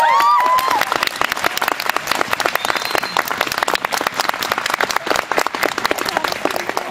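Rink audience clapping steadily, with a few high-pitched cheers in the first second, at the end of a figure skater's program.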